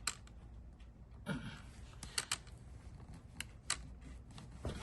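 Scattered light clicks and taps at irregular intervals, from a tire plug insertion tool being worked as a plug is pushed into a tire puncture.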